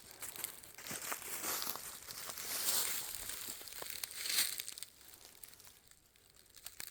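Footsteps crunching and rustling through dry fallen leaves on a forest trail. The steps die away about five seconds in.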